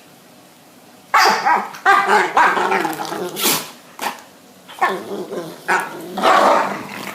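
Dogs barking and growling in a run of short, loud outbursts that begin about a second in, with one sharp, hissy burst near the middle.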